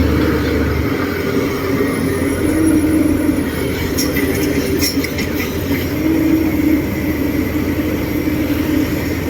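Diesel engine of a heavy tracked construction machine running steadily, with a couple of light clicks about four and five seconds in.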